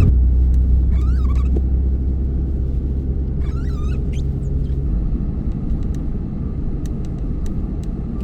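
Truck engine running, heard from inside the cab as a steady low rumble that shifts in pitch at the start and again about five seconds in as the truck slows and turns. Three short squeaks and a few light ticks sound over it.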